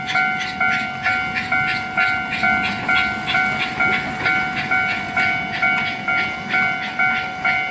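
Miniature-railway level-crossing alarm sounding its "kan-kan" warning: a ringing tone struck about twice a second, each strike a steady chime of several pitches.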